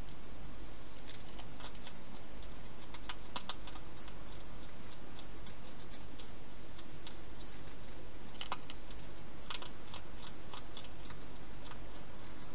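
European hedgehog feeding at its bowls inside a plastic feeding box: irregular small crunching and clicking sounds of chewing and of the bowl, bunching about three seconds in and again around eight and nine seconds, over a steady hiss.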